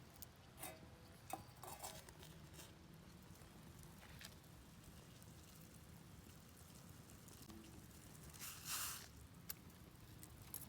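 Near silence: quiet woodland ambience with a few faint scattered clicks, and one brief rustle about eight and a half seconds in.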